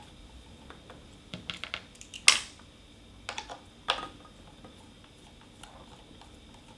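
Light clicks and taps of a screwdriver working the small countersunk screws out of a router's base, metal on metal, with the sharpest click a little over two seconds in and a few more around three and four seconds in.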